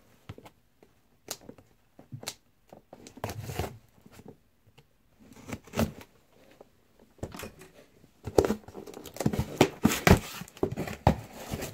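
Packing tape on a cardboard box being slit with a razor blade and pulled off: scattered scrapes, clicks and tearing, with the cardboard rustling as the box is handled, busier in the second half.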